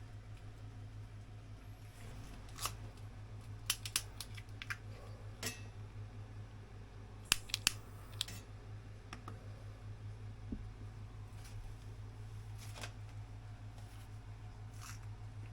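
Scattered sharp clicks and snips, some in quick clusters of three or four, over a steady low hum.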